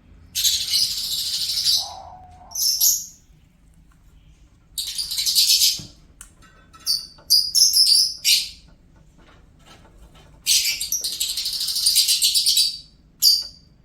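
Lovebird singing in bursts of high-pitched, scratchy chirping: about six bursts, some long and some brief, with short pauses between them.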